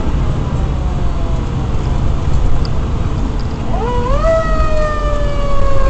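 Fire engine's siren winding up quickly about two-thirds of the way through and then slowly falling in pitch, over the steady rumble of the truck's engine and road noise heard from inside the cab.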